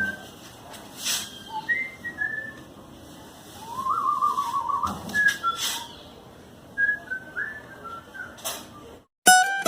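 Short, high whistled chirps and one wavering trill lasting about a second, with a few sharp knocks between them. Music starts just before the end.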